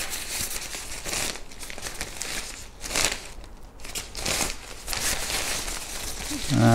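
Plastic packaging and a fabric cover rustling and crinkling in irregular bursts as they are unpacked and handled.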